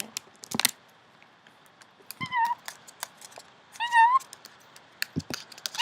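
Black-headed caique giving two short, high calls about a second and a half apart, with a few sharp clicks and taps around them.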